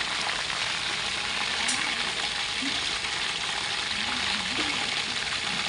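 Chicken wings frying in hot oil: a steady, even sizzle and crackle.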